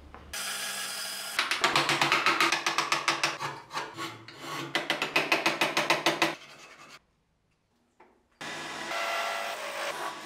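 Hand tools working wood: rapid, even scraping strokes at about six a second. After a short break, a wood lathe spins as a cutting tool works the turning piece, giving a steady noise with a held whine.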